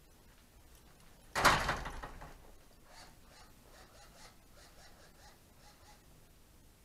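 A commercial double door swinging shut on its closers with a single bang about a second and a half in, dying away over about a second, followed by faint light knocks.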